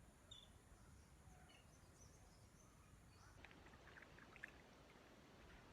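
Near silence: faint outdoor ambience with a few tiny, barely audible chirps and ticks.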